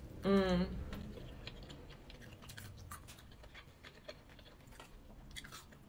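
Close-up eating sounds of crispy fried chicken being chewed: many small clicks and crackles from the mouth. A short hummed vocal sound comes about a third of a second in.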